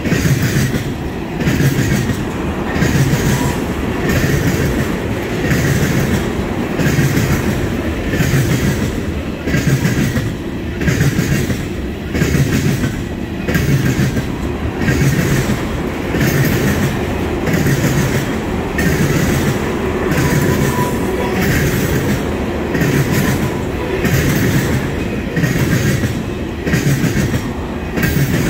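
Freight train tank cars rolling past close by: a steady rumble of steel wheels on rail, with a rhythmic clickety-clack from the wheel sets that swells about every second and a half as each car goes by.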